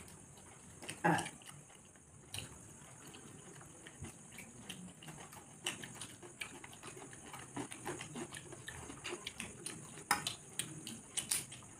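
Two people eating by hand, with close chewing and lip-smacking as they work through mughlai paratha and ghugni. Fingers tear the fried paratha and tap and scrape on steel plates, giving many small clicks, with a louder clink about a second in and a few sharper ones near the end.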